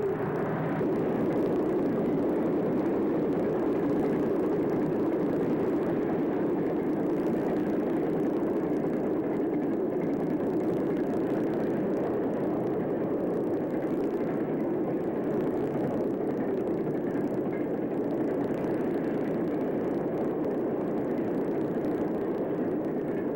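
Freight train rolling past: a steady rumble of locomotive and hopper cars on the rails.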